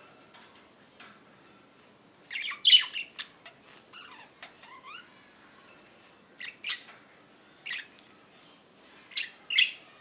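Budgerigars giving short, harsh chirps and squawks. The loudest burst comes about two and a half seconds in, followed by a few quick sliding chirps, then single calls spaced a second or two apart toward the end.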